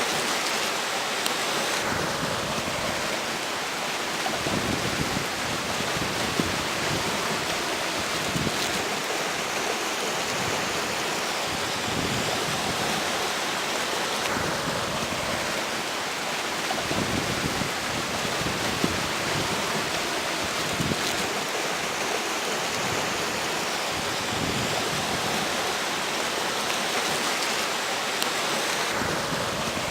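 River water rushing steadily, with strong wind gusting over it in uneven low swells every few seconds.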